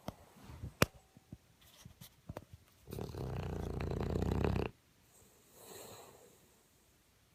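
A sleeping pet snoring: one long, low snore about three seconds in that stops abruptly after nearly two seconds, followed by a softer, breathy out-breath. Before it come a few sharp clicks, the loudest just under a second in.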